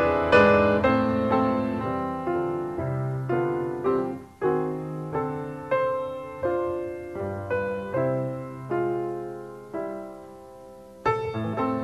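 Slow piano music: struck notes and chords, each ringing and dying away. Near the end it fades almost to nothing, then a new, louder phrase begins.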